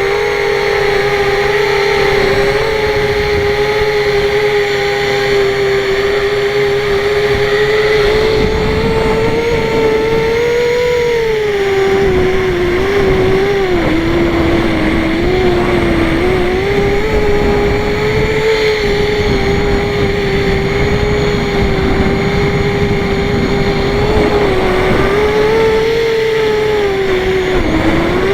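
Mini hexacopter's small electric motors and propellers buzzing in flight: a steady high drone whose pitch dips and rises as the throttle changes. A rough low rumble joins in about eight seconds in.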